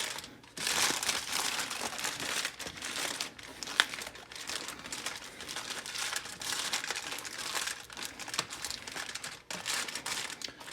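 Aluminium foil being crinkled and folded as it is wrapped tightly around a rack of ribs: a continuous irregular crackling and rustling with one sharp crinkle about four seconds in.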